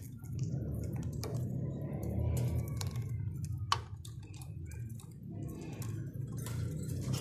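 Budgerigars in a cage: scattered sharp clicks with a few faint short chirps, over a steady low rumble.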